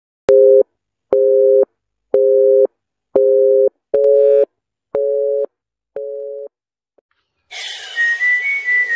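Telephone busy-signal tone: seven two-tone beeps, about one a second, the last few growing quieter. Music with a whistled line starts near the end.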